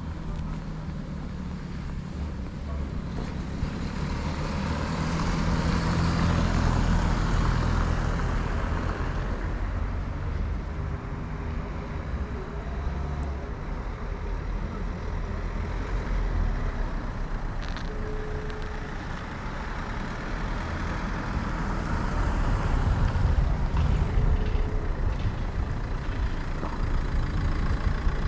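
Street traffic: motor vehicles passing with engine rumble and tyre noise, swelling twice, once a few seconds in and again near the end.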